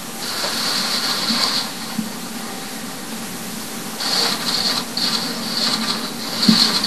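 Press camera shutters clicking in rapid bursts, with a short lull in the middle, as photographers shoot the president's silent pause at the podium.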